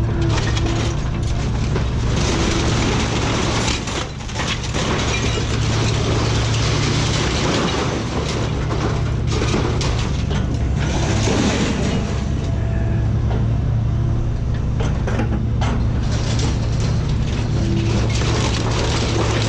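An engine running steadily under heavy mechanical rattling and clatter, with scattered knocks.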